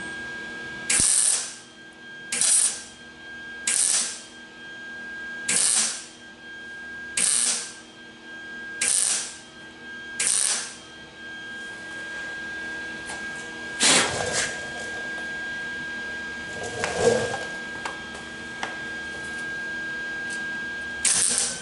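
Wire-feed welder laying short tack welds on the steel door skin: seven brief bursts of arc crackle about a second and a half apart, then a few more spaced unevenly near the end.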